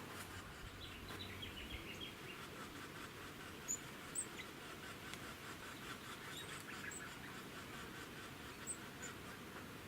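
Wild birds calling in the bush: a few sharp, very high chirps and runs of quick twittering notes, over a faint steady background.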